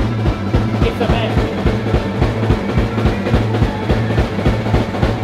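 Live rock band playing: electric guitar, electric bass and drum kit, with a steady, driving drum beat over a sustained low bass note.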